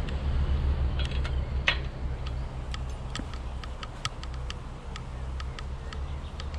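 A run of light, sharp clicks, several a second and densest in the middle, over a steady low hum.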